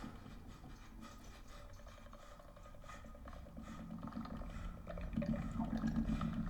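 Film soundtrack playing through a home-theater system with subwoofers: a low rumble that swells louder about five seconds in.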